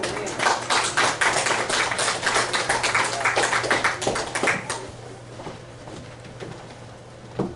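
Small congregation clapping, a dense patter of claps that dies away about five seconds in, followed by a single knock near the end.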